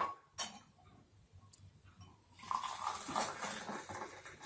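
Boiling water poured from an electric kettle into a glass: a steady pouring splash that starts about halfway through, after a single short knock near the start.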